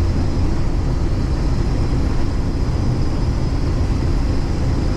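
Case IH 2388 combine running steadily while harvesting soybeans: a constant low rumble with a faint high whine over it.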